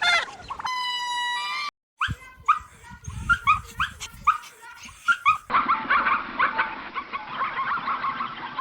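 Dog whining and yipping: a drawn-out high whine, then a quick series of short rising yips, then a denser run of whimpering yelps.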